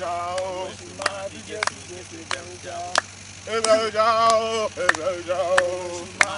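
Men singing a chant-like song in long held phrases, over sharp hand claps that keep a steady beat about every two-thirds of a second.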